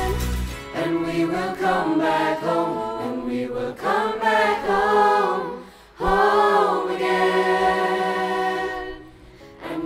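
A mixed choir of teenage voices singing together in harmony, with a short break about six seconds in and a quieter stretch near the end.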